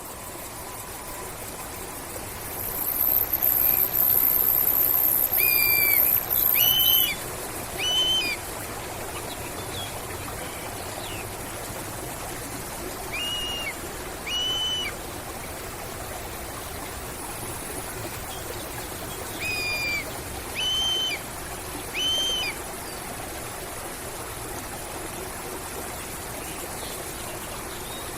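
A hawk calling: short, clear, arched whistled notes given in runs of three, then two, then three, about a second apart. Starting about three seconds in, a loud high-pitched hiss lasts about four seconds, over a steady rushing background like running water.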